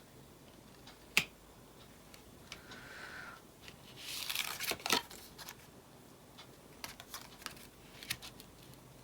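Tarot cards being handled on a table: a sharp snap about a second in, brief papery rustles near the middle ending in another snap, then a few light ticks.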